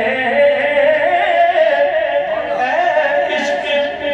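A man singing an Urdu naat without instruments, holding long notes that bend and waver in pitch.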